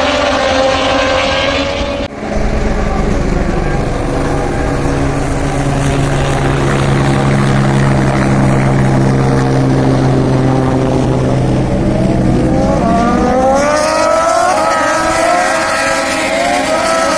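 Moto2 racing motorcycle engines running at high revs as the bikes pass, with a steady engine drone through the middle. Near the end several engines rev up together in rising pitch as the bikes accelerate onto the straight.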